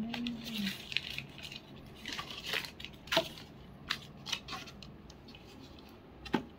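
Plastic takeaway food packaging being handled and opened: crinkling and tearing rustles with scattered sharp clicks, and a short hummed voice at the very start.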